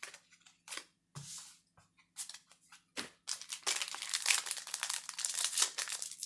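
Foil booster pack wrapper being torn open and crinkled, a dense crackle starting about three seconds in, after a few light clicks and rustles of cards being handled.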